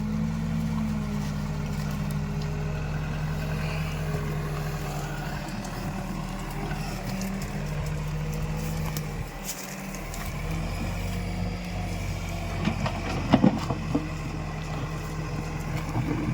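Backhoe loader's diesel engine running steadily, dipping briefly about nine or ten seconds in, with a few sharp knocks a little over thirteen seconds in.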